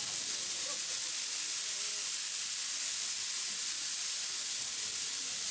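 High-voltage electrical discharge playing over a glass bottle used as an insulator: a steady hiss, strongest in the highs.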